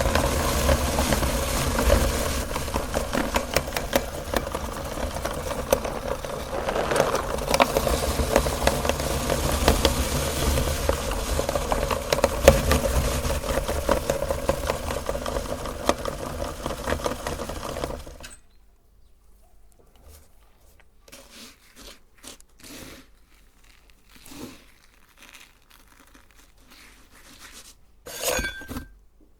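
Electric meat grinder motor running with a steady hum and crackling as it grinds cookies, switching off suddenly about two-thirds of the way through. Scattered light clicks follow, with a short clatter near the end.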